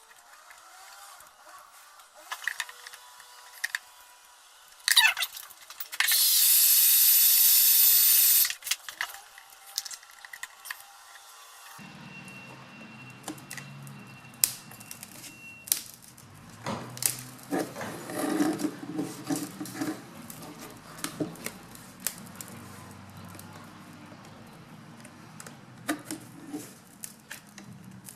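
Small clicks, ticks and scraping of a plastic pry tool worked along a laptop screen's plastic bezel to free the glued-in LCD. About six seconds in, a loud steady hiss lasts about two and a half seconds.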